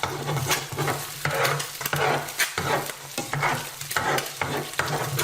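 Eggs frying and sizzling in a deep-dish skillet while a utensil stirs and scrapes them, about two strokes a second, over a steady low hum.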